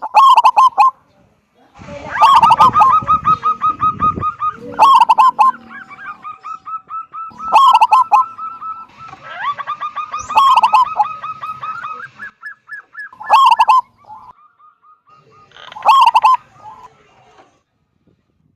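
Zebra dove (local perkutut) cooing loudly: a strong opening note followed by a fast rolling run of short staccato coos, the phrase repeated about every two to three seconds. A low rumble sits under the calls about two to four seconds in.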